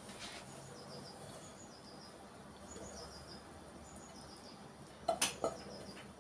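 Wooden spatula scraping sautéed red cabbage out of a frying pan into a bowl, with two short loud scrapes about five seconds in. Faint small-bird chirps repeat in the background before that.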